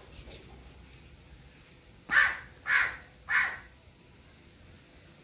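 A crow cawing three times in quick succession, harsh calls about half a second apart.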